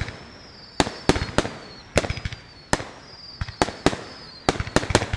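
Aerial fireworks bursting in a rapid, irregular barrage: about a dozen sharp bangs, some in quick clusters of two or three. A thin high whistle slides slowly down between the bangs.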